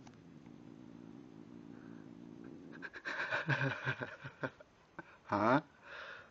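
Cat purring steadily, then, about three seconds in, chewing dry kibble and making short grumbling cries as he eats. The loudest is a drawn-out, wavering meow-like cry near the end.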